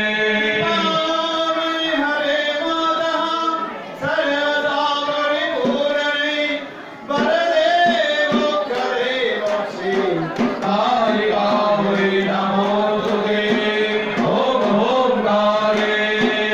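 A man chanting mantras into a microphone in long, sung phrases on a steady pitch, with short breaks for breath about four and seven seconds in.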